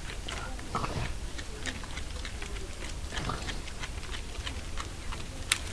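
Animals feeding at a pile of bones: small irregular clicks and crunches, with two louder scrapes about a second in and a little past three seconds, and a sharp click near the end, over a low steady hum.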